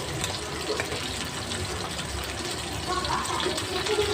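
Stuffed foli fish pieces frying in oil in a pan: a steady sizzle with small crackles.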